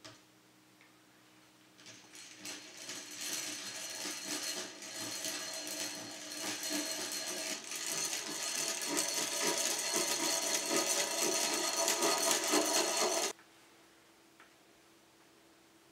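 Hand-cranked eggbeater drill running, its gears whirring as the bit bores a pilot hole through a steel pipe flange's screw hole into the red oak flywheel. It starts about two seconds in, grows louder, and stops abruptly near the end.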